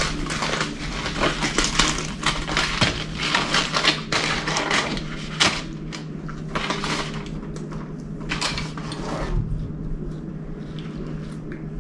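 Aluminium foil crinkling and rustling as foil-wrapped food is opened by hand: a dense run of crackles over the first five or six seconds, then sparser, quieter rustles.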